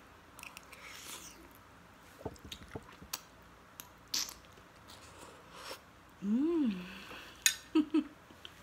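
Close-up mouth sounds of eating instant noodles: slurping and chewing with small wet clicks. About six seconds in comes a short hum that rises and falls in pitch, followed by a few sharp lip smacks.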